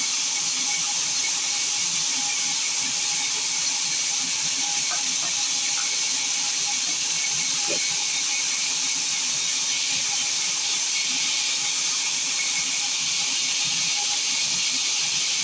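Sawmill saw running steadily: an even hiss with a faint constant whine, unchanging throughout.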